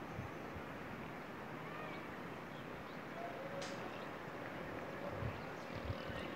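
Steady outdoor background hiss with faint, short distant calls, and two low knocks about five and six seconds in.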